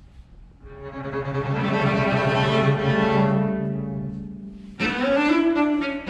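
Cello and double bass playing a slow bowed duet: a held chord swells in about a second in and fades away, then a new bowed note begins sharply near the end.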